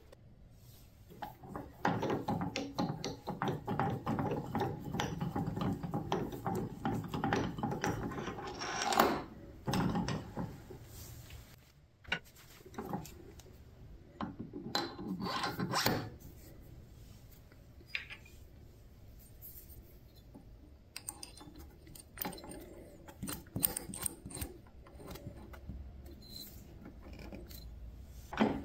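Workshop handling sounds at a wood lathe: several seconds of dense rubbing and scraping, then scattered metal clicks and knocks as a drill chuck on a taper arbor is fitted into the headstock and a drill bit is set in it, with a sharp knock near the end.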